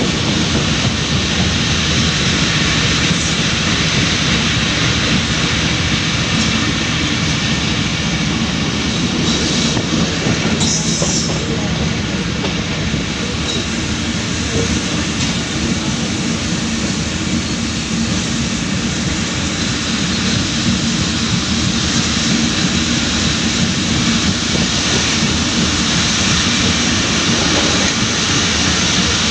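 Allama Iqbal Express passenger train running along the track, heard from an open coach window: a steady rumble and rattle of wheels on rails, with a low hum that fades out about halfway.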